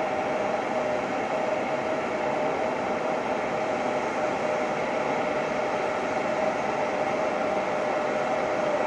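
Twin GE CF34-8E turbofans of an Embraer E-Jet running at idle as it taxis: a steady rushing hiss with one constant whine.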